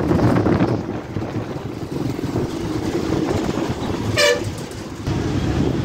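Engine and road rumble of a moving city bus, heard from a seat by an open window, with one short vehicle horn toot about four seconds in.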